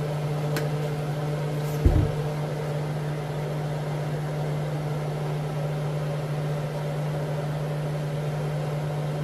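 Exhaust fan over the stove running with a steady hum. A single thump about two seconds in.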